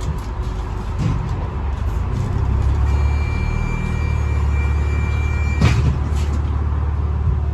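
Bus engine and drivetrain running under way, heard from inside the cabin. A low drone grows stronger about two and a half seconds in, with a steady high whine over it for a few seconds. A single knock is heard near the end.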